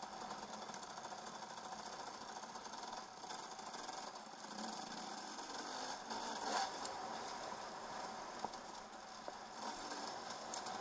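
2008 KTM 300 EXC two-stroke dirt bike running as it is ridden along a rough dirt trail and picks up speed, with rattles and knocks from the bike over the bumps.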